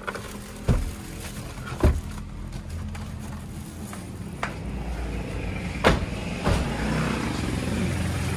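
A vehicle's engine runs with a steady low hum that grows louder about five seconds in. Four sharp knocks fall over it, two in the first two seconds and two around six seconds.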